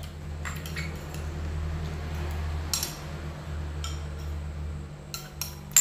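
A metal spoon clinking and scraping in a ceramic rice bowl while eating: a few scattered clicks, then a quick run of clinks near the end, the last the loudest, over a steady low hum.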